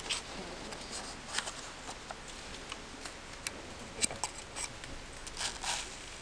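Scattered light clicks and a few short rustles, with a brief rustle near the end.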